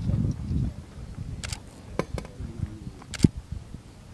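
The low boom of a 60 mm mortar shot dying away, then a few sharp clicks, the loudest near the end.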